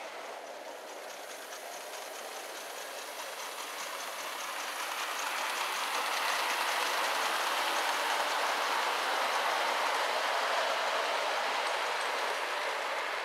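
Gauge 1 live-steam model of an LNER A3 locomotive running past with its coaches: a steady rush of wheel-on-rail and running noise with a faint rapid ticking. It grows louder as the train comes close and stays loud through the second half.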